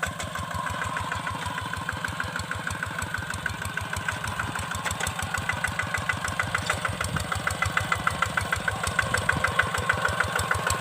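Kubota single-cylinder diesel engine of a hand tractor running at a steady speed with a fast, even chugging beat, growing a little louder toward the end.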